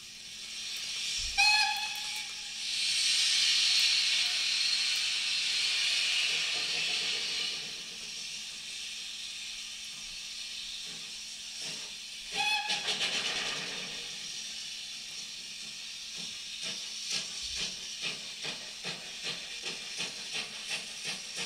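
Vinyl record of a steam locomotive played back through speakers: a short steam whistle blast, then a long loud hiss of escaping steam, a second brief whistle about twelve seconds in, and from about sixteen seconds regular exhaust chuffs, about two a second.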